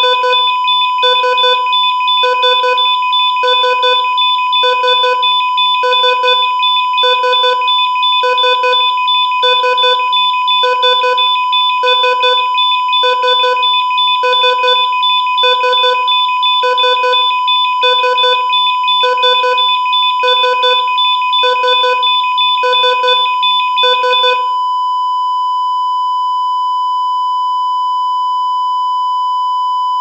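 Heart monitor sound effect beeping evenly, a little slower than once a second, over a steady alarm tone. About 24 seconds in, the beeps stop and only a continuous flatline tone remains, signalling the heart has stopped.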